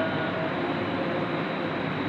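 Steady background noise in a pause between sung lines of a nauha lament; no singing is heard.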